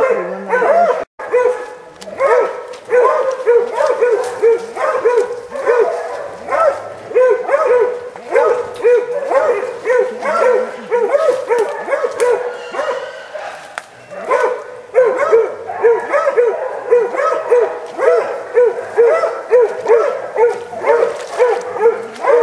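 Hog-hunting bay dog barking steadily at a cornered wild hog, about two to three barks a second without a break.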